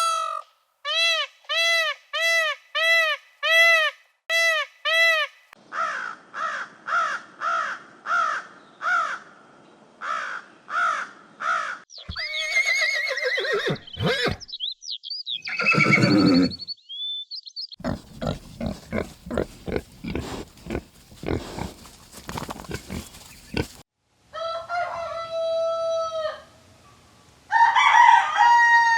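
A run of different farm animal calls one after another: first a quick series of about eight matching pitched calls, then rougher repeated calls, a burst of chirps, a stretch of rapid clucking or pecking clicks, and chicken and rooster calls near the end.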